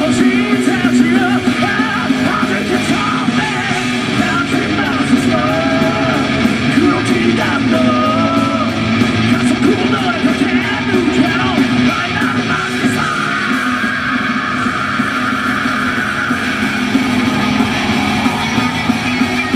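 Heavy metal band playing live through a PA: distorted electric guitars, electric bass and drums, loud and continuous.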